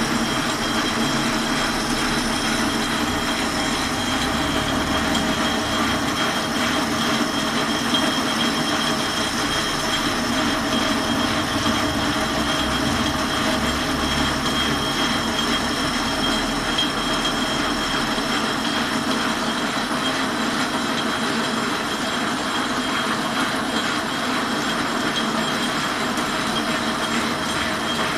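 Metal lathe turning a steel bar, the cutting tool taking a steady cut: a continuous grinding, hissing cut over the machine's running noise, with a thin high whine held throughout.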